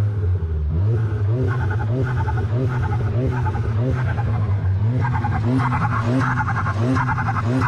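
Volkswagen Golf GTI's turbocharged 2.0-litre four-cylinder revved hard in neutral, held against the neutral rev limit so the engine note pulses up and down in a regular cycle, about one and a half times a second, with loud turbo noise.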